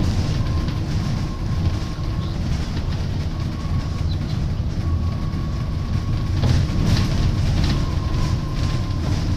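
Plaxton President double-decker bus heard from on board while it drives: a low engine and road rumble with a thin steady whine from the drivetrain and rattling from the body, with a few sharper knocks about six and a half to seven seconds in.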